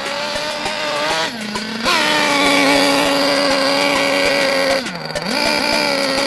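Nitro RC car's small glow-fuel engine running at speed. Its pitch dips briefly twice, about a second in and again near five seconds, and climbs back each time. It is louder from about two seconds in.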